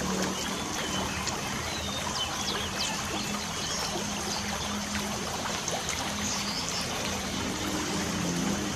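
Light rain falling steadily, with birds chirping in short, quick downward-sweeping calls over it.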